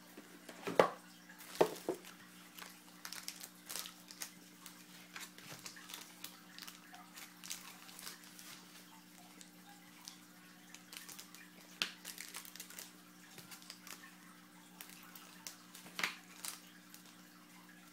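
Hands handling trading card packs and cards: scattered rustling and crinkling with light knocks, the sharpest about a second in and again near sixteen seconds, over a faint steady hum.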